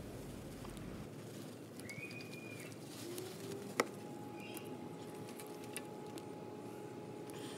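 Quiet handling of a plastic inline fuel filter and rubber fuel line in gloved hands: faint rubbing with a couple of short squeaky tones, and one sharp click a little under four seconds in.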